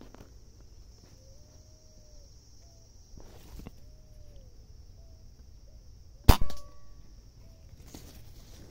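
Single shot from a Beeman air rifle, a sharp crack about two-thirds of the way in followed by a short tail.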